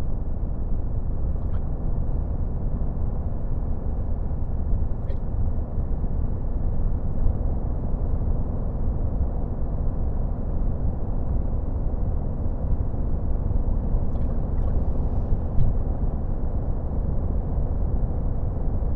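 3.0-litre Duramax inline-six turbodiesel idling steadily during an active diesel particulate filter regeneration, with the variable-geometry turbo's vanes held open, which gives regen its distinct sound. A few faint clicks come through.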